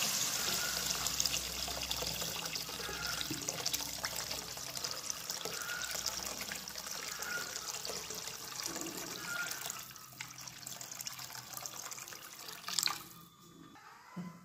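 Water pouring in a stream into a metal wok of fried fermented bamboo shoots, the pour tapering off over about ten seconds. A single knock near the end.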